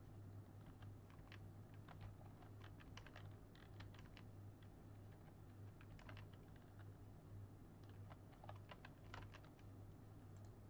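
Faint computer keyboard typing: scattered, irregular keystrokes and clicks as AutoCAD commands are keyed in, over a steady low hum.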